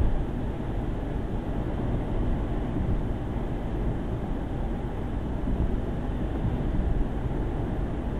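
Land Rover cruising on wet tarmac, heard from inside the cabin: a steady low rumble of engine and tyre noise with a hiss from the tyres on the wet road. A single short bump right at the start.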